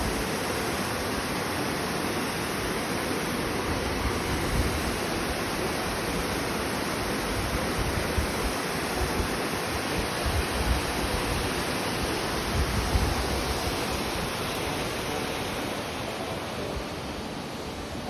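Shallow mountain stream babbling over rocks, a steady rush of water that eases slightly near the end.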